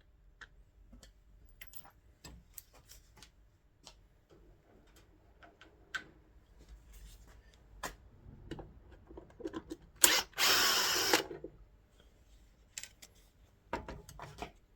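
A cordless drill runs once for just over a second, backing out a screw, and its pitch falls as it stops. Light clicks and taps of tools and parts being handled come before and after it.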